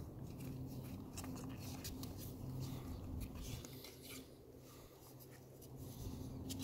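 Puppies scratching and scuffling in a cardboard box on grass: scattered short scratchy rustles of paws and claws on cardboard, over a steady low hum.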